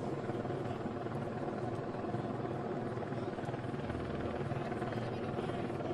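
Helicopter running steadily: a continuous, even rotor drone with a fast, fine flutter.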